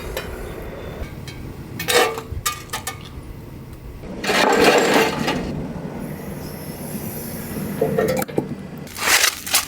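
Stones knocking and scraping against each other as they are fitted into a stone wall: a few sharp knocks, with a longer grinding scrape near the middle. Wind rumbles on the microphone underneath.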